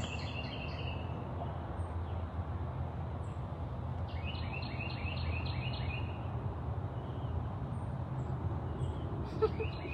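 A bird sings a quick run of short, repeated high chirps for about three seconds in the middle, over a steady low rumble. A brief sound near the end is the loudest moment.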